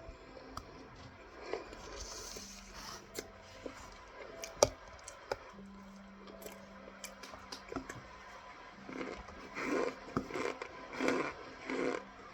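A person eating cornstarch: scattered mouth clicks and one sharp click a little under halfway, then, about three-quarters in, a steady run of crunching chews, about two a second.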